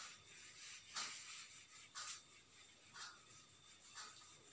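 Faint swishes of a handheld eraser wiped across a whiteboard, about one stroke a second.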